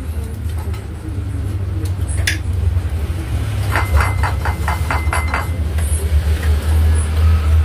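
Plates and tableware clinking as food is picked up during a meal, over a steady low hum. There is a single clink about two seconds in, and a quick run of about seven light taps a little before halfway.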